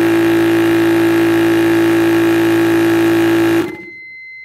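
Yong Heng 4500 psi water-cooled high-pressure air compressor running steadily with a droning tone while filling a PCP airgun. About three and a half seconds in it shuts off abruptly, its auto-stop at the preset fill pressure, and a thin steady beep follows.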